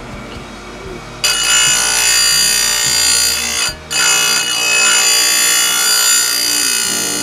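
Electric chainsaw chain grinder starting suddenly about a second in, its motor and grinding wheel running with a loud, high-pitched whine. It cuts out for a moment near the middle, then runs on and eases off near the end.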